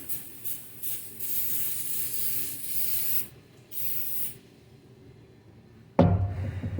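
Aerosol brake cleaner being sprayed onto transmission parts in hissing blasts: a few short squirts, one long spray of about two seconds, then a shorter one. Near the end a loud low throbbing hum starts suddenly.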